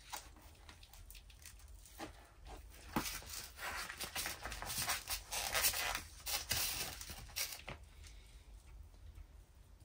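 Handling noise: rustling and small clicks in irregular crackly bursts, busiest in the middle, then quieter. This is the sound of the last bacon-wrapped sausage being taken out and put in with the rest.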